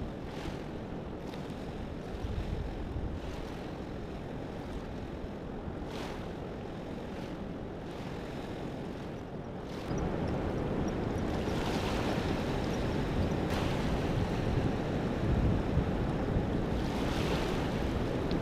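Steady rush of river water mixed with wind buffeting the microphone, growing louder about ten seconds in.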